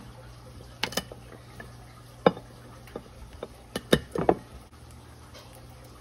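A metal utensil knocking and clicking against a plate, about half a dozen separate sharp taps, as a garlic clove is pressed and crushed on it. A low steady hum runs underneath.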